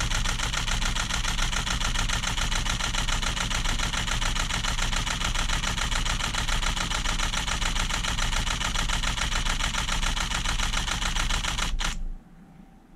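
Nikon D850 DSLR firing a continuous high-speed burst: mirror and shutter clacking in a rapid, even rhythm, stopping abruptly about twelve seconds in. The pace never slows, a sign that the 512GB CFexpress card keeps up with the writes.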